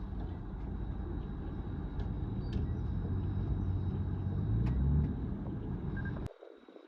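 Bulldozer's diesel engine running hard under load, its low rumble building, with a few sharp metallic clanks, then cutting off suddenly near the end.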